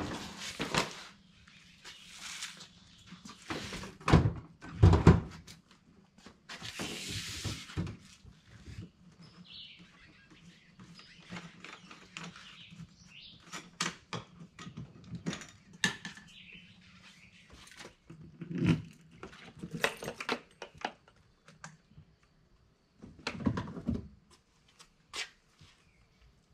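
Intermittent thunks, clicks and rustles from a heavy yellow shore-power extension cord being pulled, coiled and stowed at a truck camper's side compartment, over a faint low steady hum.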